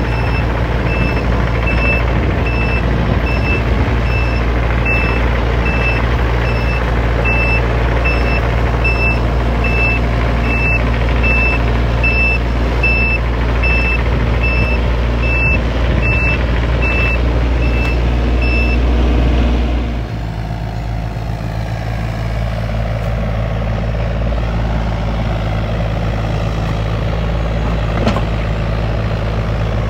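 Takeuchi TB325R mini excavator's diesel engine running while the machine tracks, with its travel alarm beeping steadily about twice a second and a few rattling clicks. About 19 s in the beeping stops, and just after the engine drops to a lower, steadier idle.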